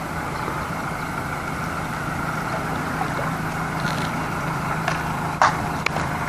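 Fishing boat's engine running steadily with a low hum, under a rushing haze of wind and water. A couple of short sharp knocks sound near the end.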